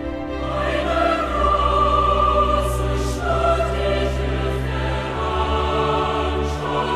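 Music with a choir singing long held notes over a sustained orchestral backing.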